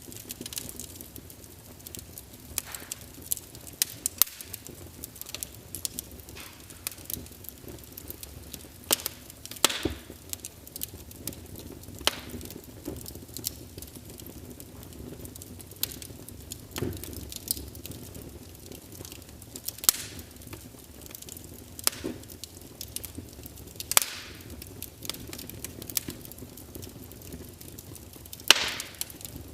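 Wood fire crackling: irregular sharp pops and snaps over a steady low hiss, a few louder pops among them, the loudest near the end.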